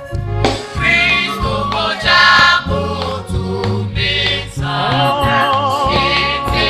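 Gospel music: a choir singing over a steady bass beat.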